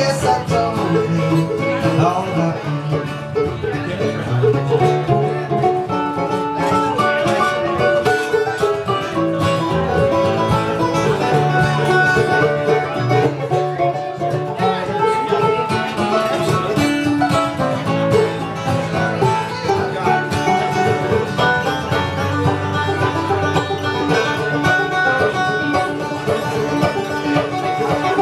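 Live acoustic bluegrass played on five-string banjo, mandolin and acoustic guitar: a steady instrumental passage of fast picked notes, with no singing.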